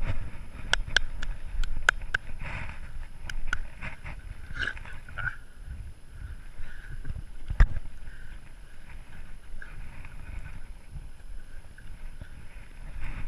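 A German Shorthaired Pointer running, heard through an action camera strapped to its chest harness: a steady rumble and buffeting that rises and falls with its stride. A run of sharp clicks comes in the first few seconds, and there is one hard knock about seven and a half seconds in.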